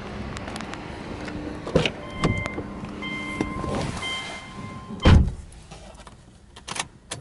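Getting into a Subaru Legacy B4 sedan: handling clicks at the driver's door, an electronic tone sounding on and off, then the door shutting with a heavy thud about five seconds in, followed by a few light clicks.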